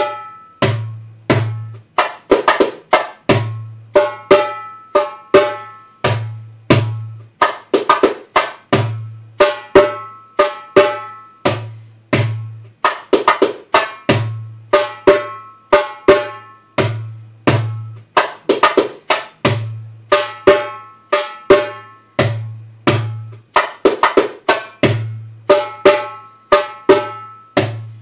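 Darbuka (doumbek) played in a çiftetelli rhythm: deep doum strokes and light ka-tek strokes, then sharp muted pops alternating with muted single-finger flicks, the pattern repeating bar after bar.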